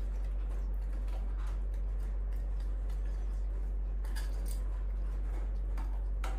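A steady low hum with a few faint clicks and light taps over it, the clearest about four seconds in and near the end.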